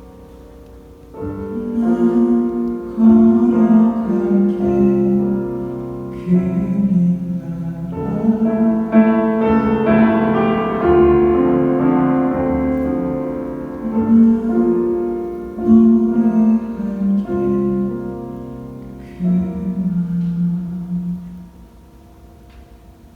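Piano playing slow sustained chords in a ballad. It comes in about a second in, swells to its fullest around the middle and fades away near the end.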